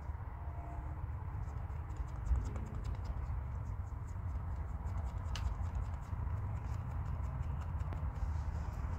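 Quiet scratching and light ticks of makeup being handled and applied close to the microphone, with one sharper click about five seconds in, over a steady low rumble.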